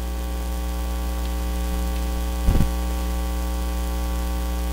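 Steady electrical mains hum, a buzzing drone with its stack of overtones, with one brief low thump about two and a half seconds in.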